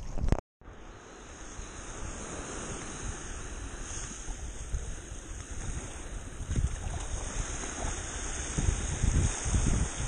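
Small waves washing onto a sandy beach, with wind buffeting the microphone. There is a brief dropout about half a second in, and the low wind rumble grows stronger in the second half.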